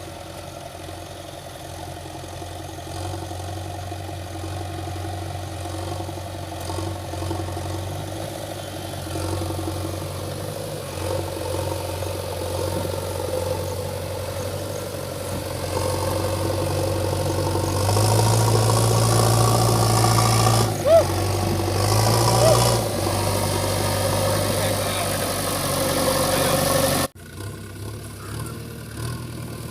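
JCB backhoe loader's diesel engine running with a steady low hum, growing louder during the second half with a couple of brief squeaks, then dropping off suddenly near the end to a quieter engine sound.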